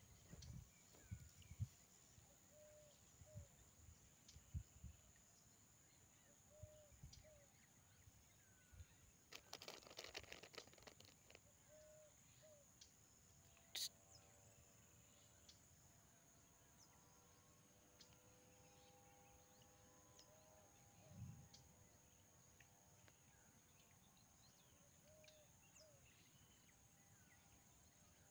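Near silence: faint rural outdoor ambience with a soft short call repeating every few seconds, a steady faint high whine and one small click.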